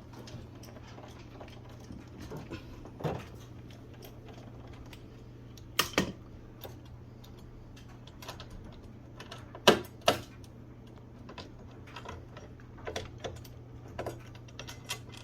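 Irregular light clicks and taps of a screw being driven by hand with a manual screwdriver into a soundbar bracket, with sharper knocks in pairs about six and ten seconds in. A steady low hum runs underneath.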